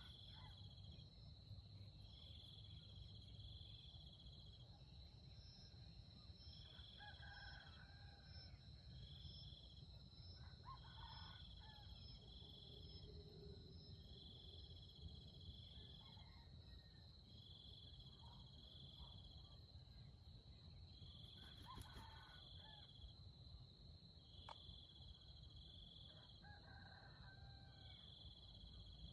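Faint rooster crowing, several times, over a steady high-pitched insect drone and cricket-like trills repeating about every two to three seconds.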